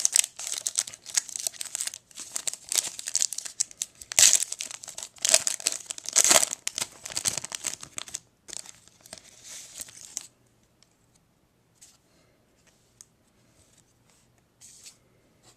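Trading-card pack wrapper being torn open and crinkled, dense and crackly for about eight seconds. It goes fainter for a couple of seconds more, then stops, leaving only a few faint taps.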